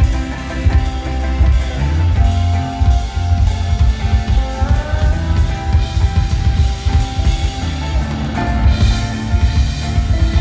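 Live rock band playing an instrumental passage: a drum kit keeps a steady beat with kick and snare under a strummed, amplified acoustic guitar and held notes.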